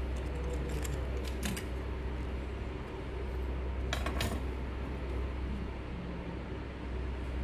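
Light metallic clicks and clinks of small metal parts or tools being handled during copier disassembly: a few about a second and a half in and a stronger cluster about four seconds in, over a steady low hum.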